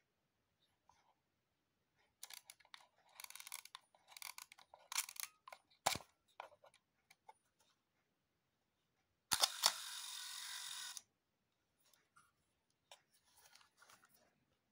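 Contax D SLR being wound, with a run of ratcheting clicks, then its focal-plane shutter fired at a slow speed about nine seconds in. It goes off with a click, a steady mechanical buzz of the slow-speed escapement lasting about a second and a half, and a closing click. Faint handling clicks come near the end.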